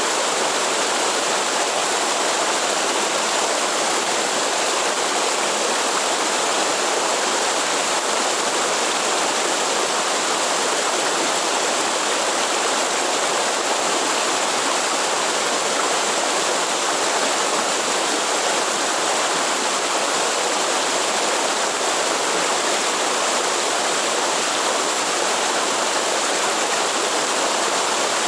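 Waterfall pouring steadily: an even, unbroken rush of water that holds the same level throughout.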